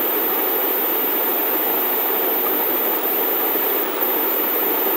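Steady, even hiss of background noise with no distinct events, like a fan or room noise picked up by the microphone.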